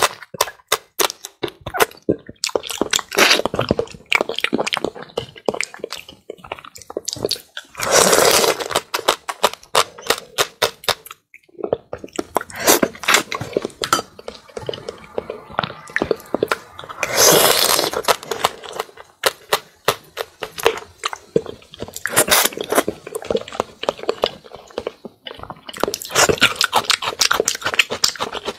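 Close-miked eating: chewing and crunching with wet mouth clicks, rising into louder bursts of crunching every few seconds.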